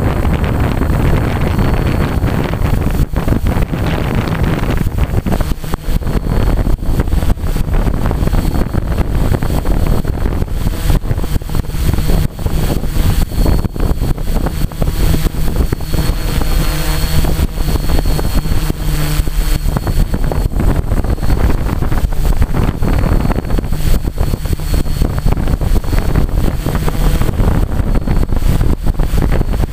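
Quadcopter's electric motors and propellers running with a steady high whine, heard from a camera carried on the craft, mixed with heavy wind buffeting on the microphone.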